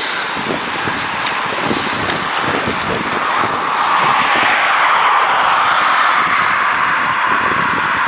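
Wind buffeting the microphone of a camera on a moving bicycle, mixed with tyre and traffic noise from the road alongside; the hiss grows louder about three and a half seconds in.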